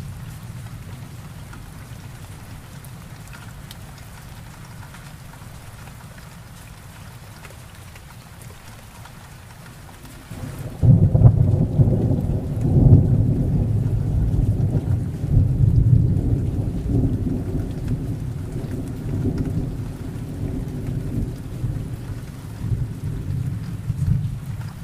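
Steady heavy rain falling. About ten seconds in, a loud thunderclap breaks in and rolls on as a deep rumble, swelling a few times and slowly dying away.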